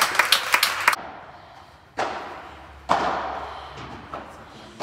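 A few spectators clapping, cut off about a second in; then a padel ball struck by rackets, three sharp hits with a ringing hall echo, the later two nearly two seconds apart, with a faint bounce between them.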